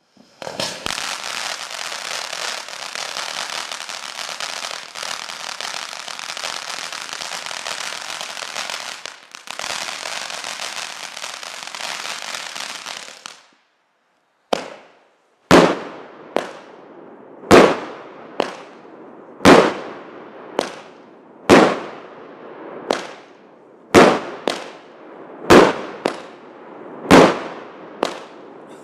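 DooKovany compact firework cake, a nine-shot cake combined with a fountain. The fountain hisses steadily for about thirteen seconds. After a short pause the shots begin: loud sharp bangs about every two seconds, with softer pops between them.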